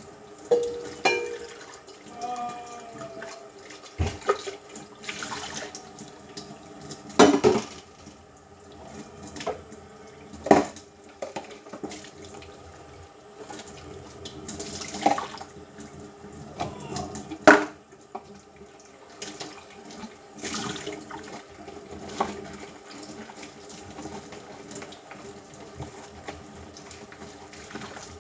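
Running water at a kitchen sink while dishes are washed by hand. Dishes clink and knock against each other and the sink every few seconds.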